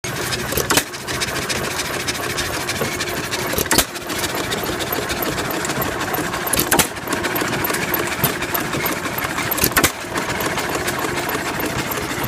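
Antique John Deere hit-and-miss gas engine running a belt-driven water pump. A steady, fast mechanical clatter is broken by a sharp, loud bang about every three seconds as the engine fires and then coasts between fires.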